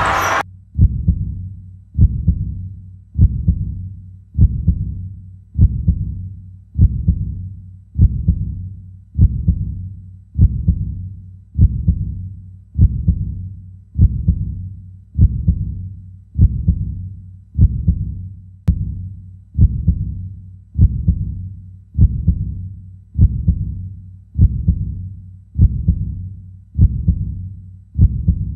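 Heartbeat sound effect: a deep single thump about every 1.2 seconds, slow and steady, each one fading quickly.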